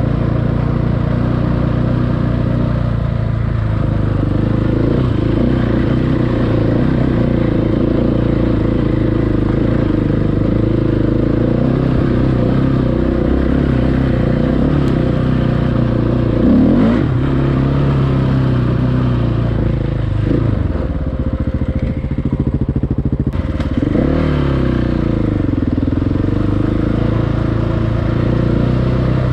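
Motorcycle engine running under way on an off-road ride, likely the rider's own 690 enduro single. Its pitch rises and falls with the throttle, with a quick rev about halfway through and another near the end.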